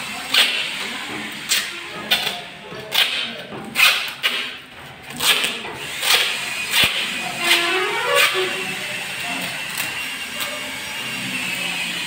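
Adhesive tape being pulled off its roll in a series of short rips and wrapped around the rim of a flexible corrugated aluminium chimney duct pipe. The rips come about once or twice a second for the first several seconds, then a longer rasping pull, and after that the sound settles quieter.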